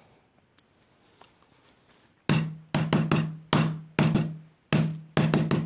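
A drum-like beat starts about two seconds in: about ten sharp hits, each with a low ringing note that dies away, in an uneven rhythm. Before that, only a faint click.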